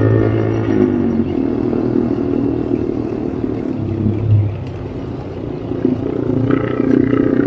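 A 4x4 vehicle's engine working along an offroad track. Its note drops about a second in, runs rougher and lower for a few seconds, then climbs again near the end.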